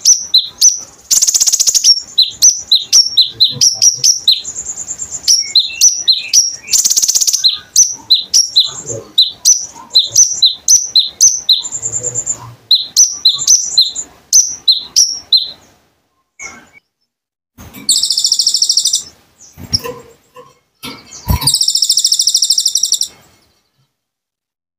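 Songbird song of the konin: fast series of high, sharply falling chirps, about three to four a second, broken twice by short buzzy trills. The chirping stops about two-thirds of the way through, and two longer buzzy trills of about a second each follow after short pauses.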